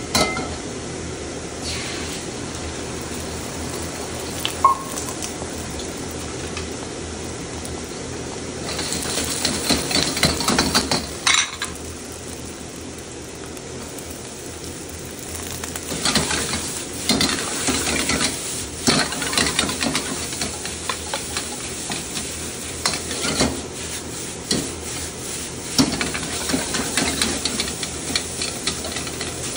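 Egg fried rice frying in a carbon-steel wok: a steady hiss at first, a louder burst of sizzling about nine seconds in, then, from about halfway, a metal wok ladle scraping and clanking against the wok again and again as the rice is stirred and tossed.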